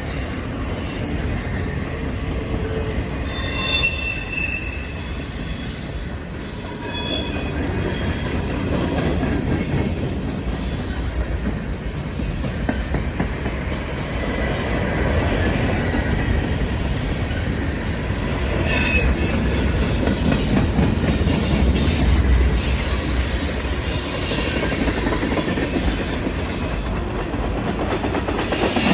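Cars of a mixed manifest freight train rolling past over the rails, with high-pitched wheel squeals coming and going.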